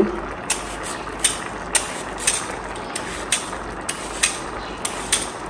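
A handheld julienne peeler shredding a raw carrot in quick repeated strokes, about two a second, each stroke a short scrape.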